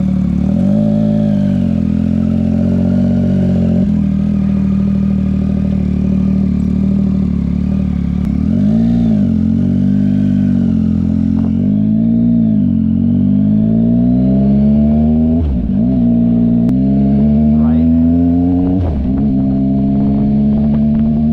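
Yamaha MT-09 motorcycle's three-cylinder engine running at low revs with a few brief swells in pitch, then accelerating through the gears: three rising pulls, each ending with a drop in pitch at the upshift.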